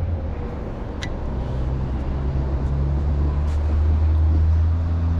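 An engine idling with a steady low hum and a single sharp click about a second in.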